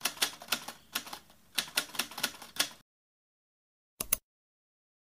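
Typewriter keystroke sound effect: a quick, uneven run of about a dozen sharp clacks over nearly three seconds. A short double click follows about four seconds in.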